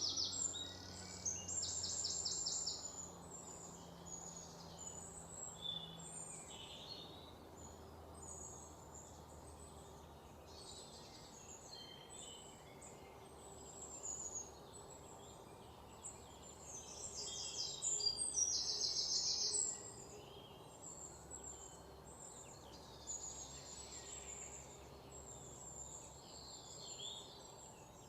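Forest ambience: many birds chirping and singing, with rapid high trills that are loudest at the start and again about two-thirds of the way through, over a faint steady low rumble.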